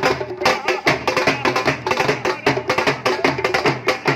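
Dhol drum played in a fast, driving rhythm of dense, rapid strokes, mixed with music.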